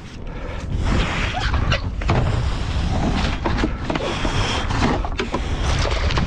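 Wind buffeting the microphone and water sloshing around a kayak, with several short knocks or clicks in the first half.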